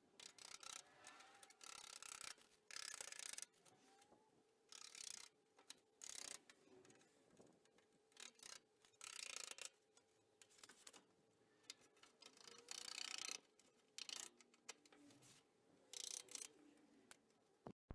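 Faint grinding hiss from an angle grinder's 1 mm cutting disc cutting through the seam weld of a steel door skin, coming and going in short bursts with silent gaps between them.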